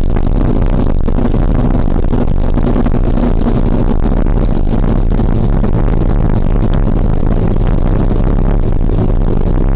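Motorcycle engine running at a steady cruising speed, with wind noise rushing over the microphone.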